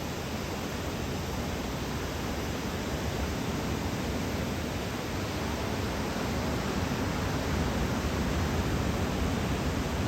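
Steady noise of breaking surf from a typhoon-driven swell, growing slightly louder over the last few seconds.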